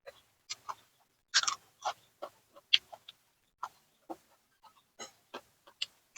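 Close-miked crunching and chewing of raw vegetables, a string of irregular crisp bites and chews, the loudest crunch about one and a half seconds in.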